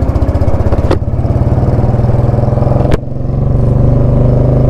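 Royal Enfield Bullet Classic's single-cylinder engine running through a loud aftermarket exhaust with a fast, even thump as the bike pulls away. Two sharp cracks come about two seconds apart, and after the second the engine note builds steadily.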